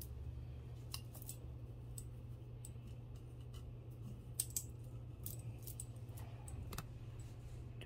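Faint scattered clicks and clinks of costume jewelry, metal chain and beads, being handled and set down, over a low steady hum.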